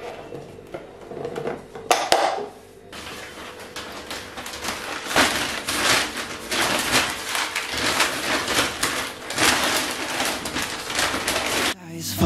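Clear plastic storage containers clicking and knocking as they are handled. Then, from about three seconds in, a plastic carrier bag crinkles and rustles steadily as things are taken out of it, stopping just before the end.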